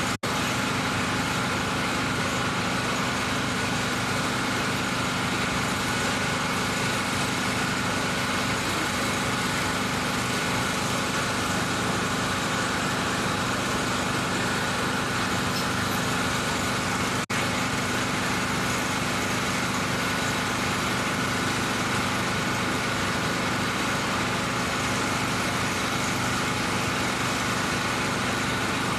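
Engine idling steadily with an unchanging hum, cutting out for an instant twice.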